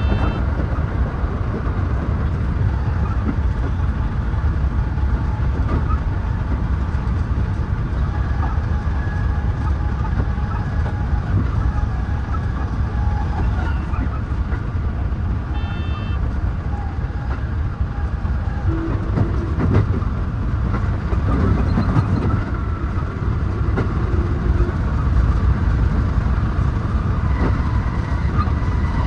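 Running noise of a JR West 223 series 2000 electric multiple unit heard from the driver's cab: a steady rumble of wheels on rail with a faint motor whine. Two short high beeps sound, one at the start and one about 16 seconds in.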